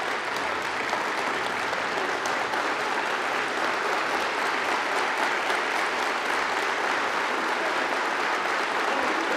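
A large audience applauding steadily, many hands clapping together in a dense, even patter.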